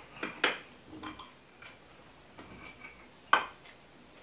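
A kitchen knife clicking against a glass baking dish while cutting through brownies: a few light ticks, the loudest about three seconds in.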